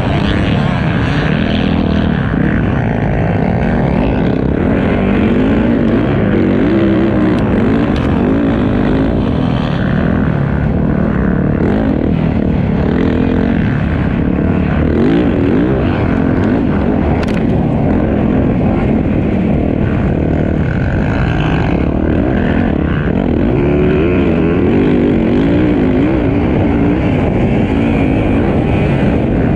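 Motocross dirt bike engine running hard under race load, heard from on board, its pitch rising and falling as the throttle opens and closes and the rider shifts.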